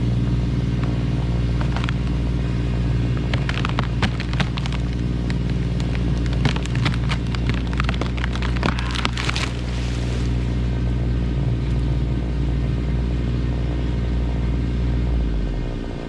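An engine running steadily at a constant speed, with a run of sharp cracks and snaps over it through the middle of the stretch; the engine note drops away near the end.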